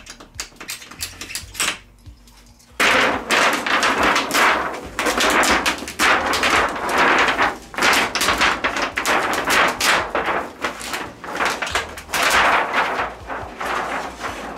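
Loud, irregular crackling and rustling from handling the parts of an LED TV's backlight panel, starting about three seconds in after a few light clicks.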